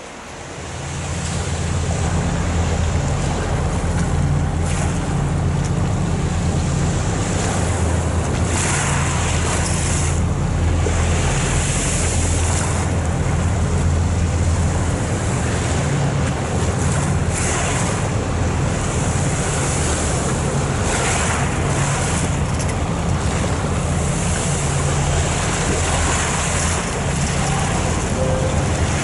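Wightlink car ferry Saint Clare passing close by under way, its engines giving a steady low hum, with wind buffeting the microphone and water washing. The sound swells up over the first second or two.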